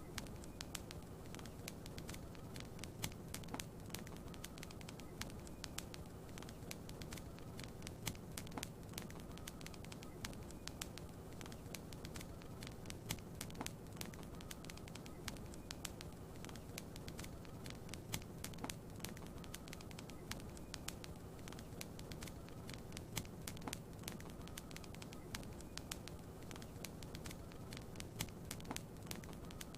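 Wood fire crackling in a fireplace: irregular sharp pops and snaps, several a second, over a steady soft hiss.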